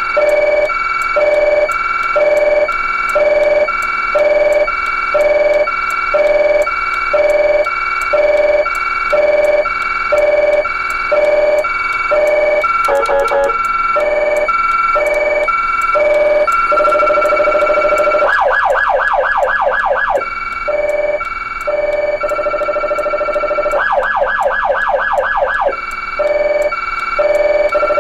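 Electronic police siren sounding a two-tone hi-lo, alternating a high and a low note with a full cycle a bit under a second. Past the halfway point it switches between the hi-lo and bursts of rapid warble lasting about two seconds.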